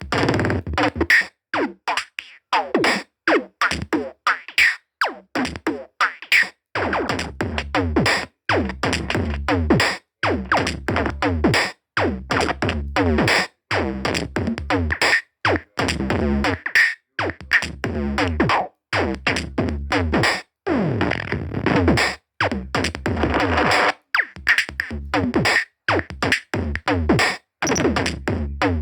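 Electronic music: synthesizer sounds over a drum-machine beat, chopped into short pieces that start and stop abruptly, with falling pitch sweeps.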